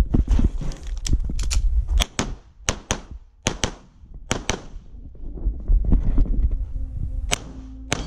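Handgun shots fired in a practical-shooting course of fire, many of them in quick pairs, with a pause of a couple of seconds between groups near the middle.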